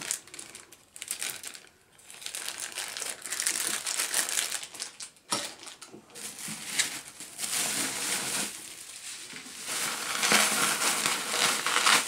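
Bubble wrap crinkling and rustling as it is handled and pulled out of a case, in spells with a short pause about five seconds in, loudest near the end.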